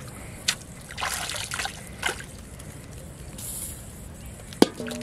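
Water in a shallow canal splashing and trickling briefly about a second in, with a few sharp clicks. Music with steady tones comes in near the end.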